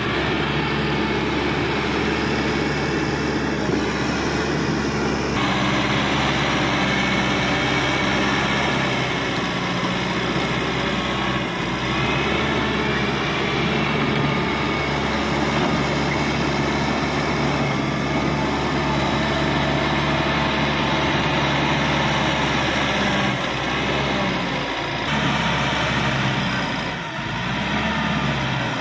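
Caterpillar D5K XL bulldozer's diesel engine running steadily, with the grinding and clatter of the machine at work over it. The sound changes abruptly a few times.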